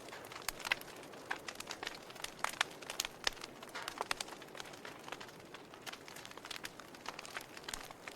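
Wood fire crackling in a fireplace: irregular sharp pops and snaps, several a second, over a soft steady hiss of burning.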